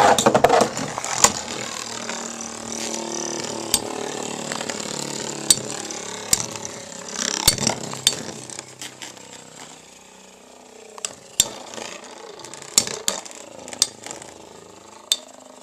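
Two metal-wheeled Beyblade spinning tops whirring and grinding in a battle stadium, with sharp clacks as they collide. The whir gradually fades as the tops lose spin.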